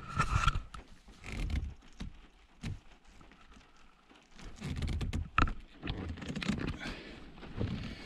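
A gear knob being screwed tight onto a car's gear lever: scattered clicks, light knocks and scraping of hands and tool against the knob and lever, with a sharper click about five and a half seconds in.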